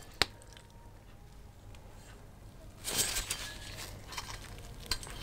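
Flywheel of a Tecumseh two-stroke lawnmower engine being lifted off its crankshaft: a brief metallic scrape and rattle about three seconds in, with a light click at the start and a couple of small clinks near the end.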